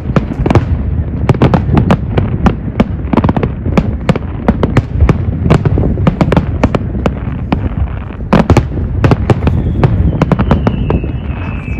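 Fireworks display going off: a rapid, continuous barrage of sharp bangs and crackles, with a faint high wavering whistle near the end.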